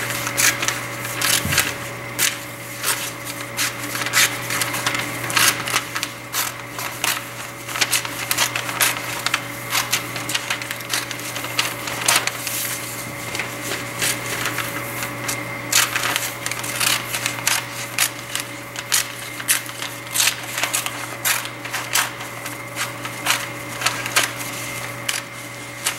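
Scissors cutting printer paper: a long run of irregular snips, with a steady hum underneath.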